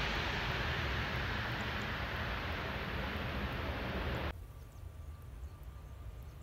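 Turboprop airliner engine noise, a loud, steady rushing that cuts off suddenly about four seconds in. After that there is only a much quieter low rumble with a faint steady tone.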